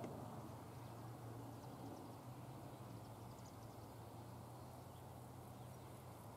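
Faint outdoor field ambience: a steady low hum under a soft even hiss, with a few faint high chirps about three seconds in.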